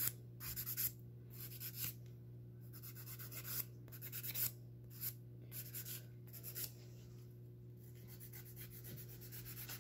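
Hand nail file rasping back and forth across fingernails in short, quiet, irregular strokes, about two a second.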